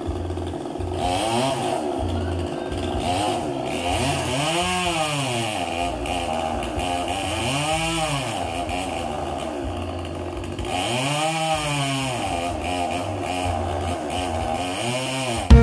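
Two-stroke chainsaw running up in a coconut palm, its engine revving up and falling back about four times.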